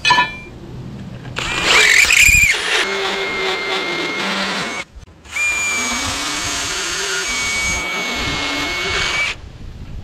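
DeWalt 20V XR cordless drill turning a deburring reamer bit to open up bolt holes in steel plate, with a steady whine. It runs in two stretches of a few seconds each, with a brief stop in between.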